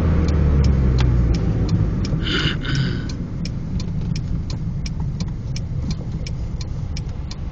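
Toyota Glanza's turbocharged engine running, with the revs dropping in the first second, then a brief fluttering hiss about two seconds in: turbo flutter as the throttle closes. A light regular ticking runs under it, about three ticks a second.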